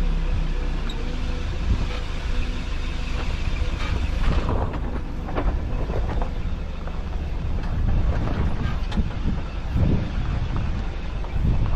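Vehicle driving over a rough, bumpy road: a steady low engine and tyre rumble, with the body rattling and knocking irregularly over the bumps.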